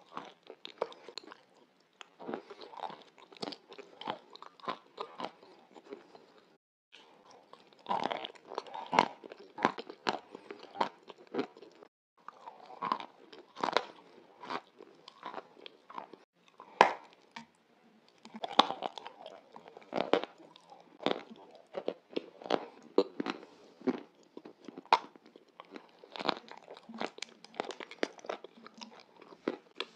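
Close-miked ASMR eating sounds: a person chewing a crunchy, crumbly food, a dense run of crisp crunches with two brief pauses, about seven and twelve seconds in.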